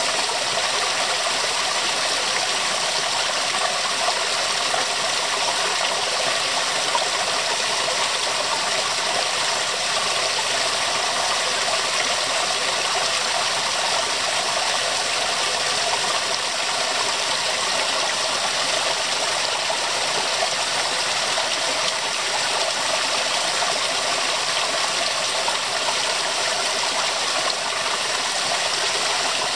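Small waterfall, thin streams of water splashing steadily down rock ledges into a shallow pool.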